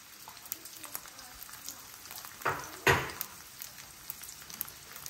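Peeled garlic cloves frying in oil in a stainless steel pan, a low sizzle scattered with small crackles. Two louder sudden sounds come close together about two and a half seconds in.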